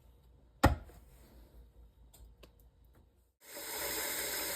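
A single sharp knock, a few faint clicks, and then a steady hiss that starts abruptly about three and a half seconds in.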